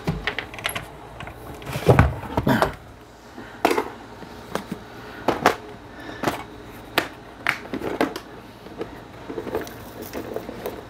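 Hard plastic cases being handled on a desk: a string of separate clicks and knocks as a case is moved and its lid opened, the loudest a thump about two seconds in.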